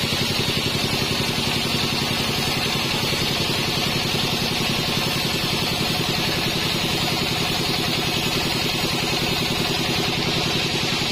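Band sawmill machinery running steadily: a fast-pulsing engine-like drone with a hiss above it, level and unbroken.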